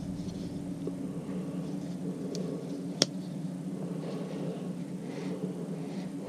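Faint steady low hum, with light handling noise and one sharp click about halfway through.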